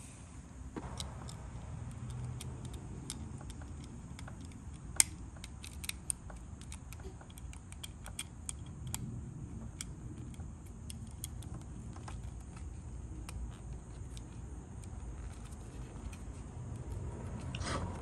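Small plastic and metal clicks and taps from handling a GFCI plug housing and its terminal screws while the cord's wires are fitted, with one sharp click about five seconds in. A steady low rumble sits underneath.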